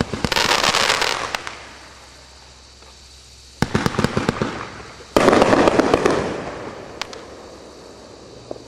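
Winda Wishing Star II consumer fireworks cake firing. A dense burst of crackling opens, then comes a lull of about two seconds. A volley of sharp reports follows about three and a half seconds in, then another loud burst about five seconds in that fades away, with a few stray pops near the end.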